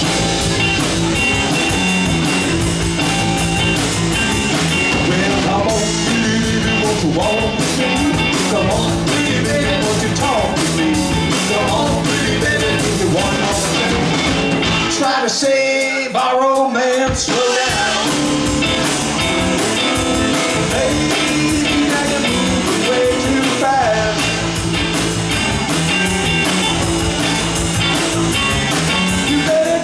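Live rock band playing: electric guitars, electric bass and drum kit. About halfway through, the bass and drums stop for a couple of seconds under a guitar line, then the full band comes back in.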